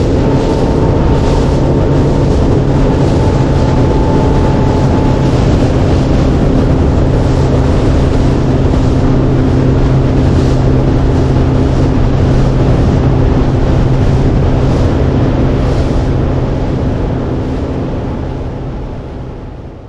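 Boat's outboard motor running steadily at speed across the water, with wind noise on the microphone, fading away over the last few seconds.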